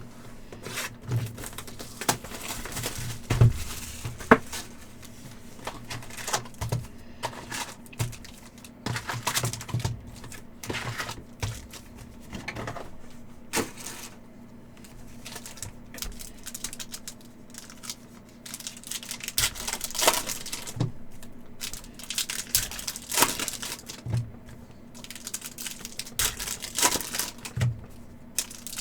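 Upper Deck hockey card packs being opened and handled: wrappers crinkling and tearing, with many irregular clicks and taps as the cards are shuffled and set down.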